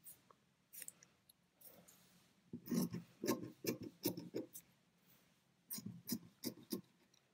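Scissors cutting through thin fabric: two runs of quick snips, the first starting about two and a half seconds in and the second a second later.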